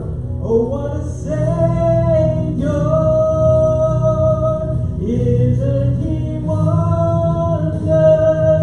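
Worship song: a voice singing long, held notes over instrumental accompaniment with a steady bass.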